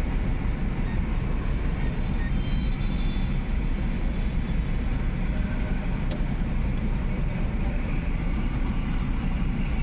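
Steady low rumble of vehicle and road-traffic noise, with a faint click about six seconds in.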